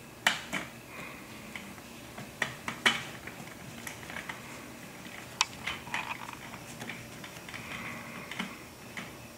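A stubby screwdriver driving a small screw into a metal fitting on an aluminium curtain track: irregular light clicks and scrapes of metal on metal, with a few sharper ticks in the first three seconds.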